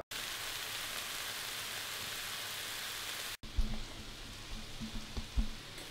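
Food frying in a pan: a steady sizzle. It cuts off suddenly about three and a half seconds in and carries on quieter, with a few low bumps of the camera being handled.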